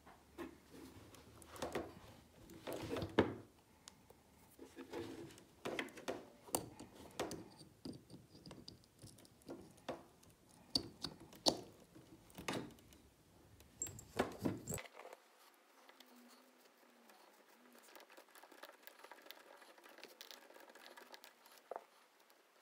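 Small plastic and metal clicks, taps and rustles of a hand-held RC crawler wheel being fitted back onto the hex of its brass portal housing and secured. They come irregularly for about fifteen seconds, then only faint handling remains.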